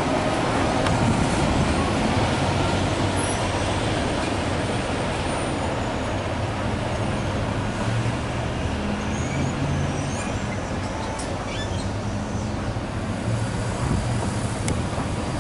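Empty autorack freight cars rolling away, their wheel noise slowly fading, mixed with road traffic at the grade crossing: a vehicle engine hum comes up in the second half as cars and a pickup start across.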